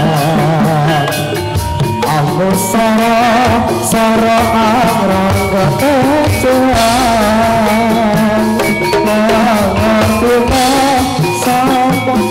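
Dance accompaniment music for gedrug (rampak buto) dancing: steady drums and percussion under a wavering, vibrato-laden melody line, with singing.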